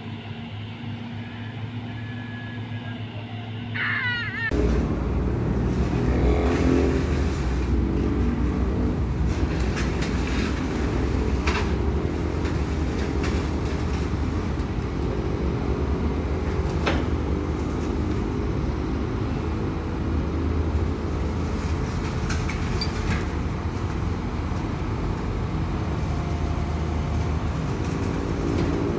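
Diesel engines of two hydraulic excavators running under load, a steady low rumble with a wavering hum. It jumps louder about four seconds in, and a few clanks and scrapes come through as a wooden cabin is dragged onto a low-bed truck.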